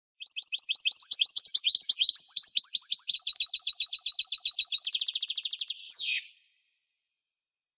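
European goldfinch singing: a rapid run of high twittering notes lasting about six seconds, quickening into a fast trill about five seconds in and ending on a single falling note.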